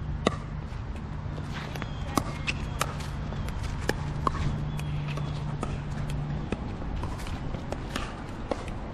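Pickleball paddles hitting a plastic ball: many sharp pops at irregular intervals, over a low steady hum that stops about six and a half seconds in.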